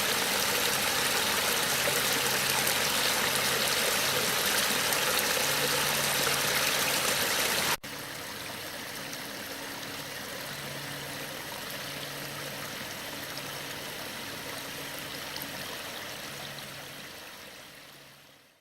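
Water running steadily down the rock cascades of a pondless waterfall. About 8 s in it drops suddenly to a quieter level, then fades out near the end.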